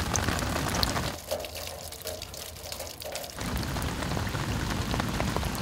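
Shallow stormwater trickling over stones in a rock-lined drainage channel, with scattered drips and splashes. It goes softer for about two seconds in the middle.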